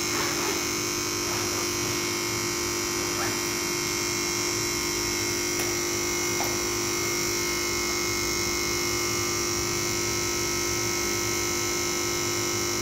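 Relay in an elevator controller panel buzzing steadily. The buzz points to low coil voltage: the new transformer's 110 V output is giving only about 101 V, and the voltage needs raising to quiet it.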